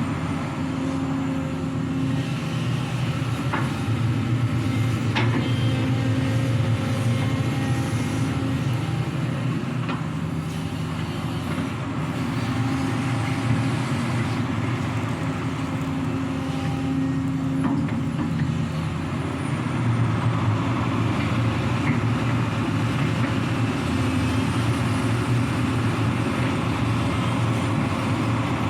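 Sany hydraulic excavator's diesel engine running steadily while working, with a few sharp knocks.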